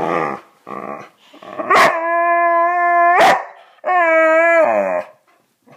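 Boxer dog 'talking' to demand attention: a couple of short grumbling growls, then two long, steady-pitched howls, the second sliding down in pitch as it ends.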